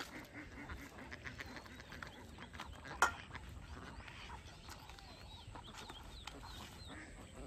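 Ducks quacking faintly and intermittently, with small clicks of hands working a paste in a steel bowl and one sharper click about three seconds in.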